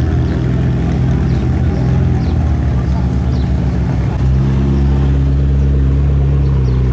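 McLaren 650S's twin-turbo V8 running at low revs as the car creeps forward. It sounds uneven at first, then turns steadier and louder about four seconds in.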